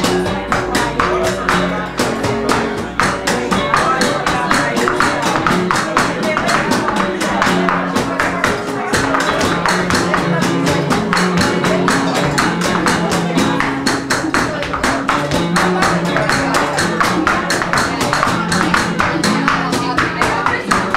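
Live flamenco: nylon-string guitars, a trumpet and a cajón playing together, with rapid percussive strikes throughout from the dancer's footwork and the percussion.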